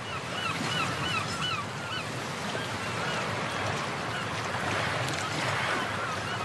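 Steady wind and water noise aboard a river boat, with a low motor hum under it, and short high chirping calls like a bird's, about four a second through the first second and a half and a few more later.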